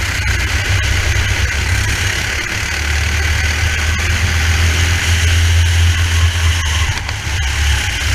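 Racing kart's engine running at speed, heard through the driver's onboard helmet camera, with a steady rush of noise over it.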